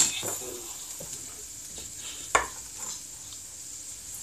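Cookware being handled: one sharp clack about two seconds in and a few faint clicks, over a faint steady hiss.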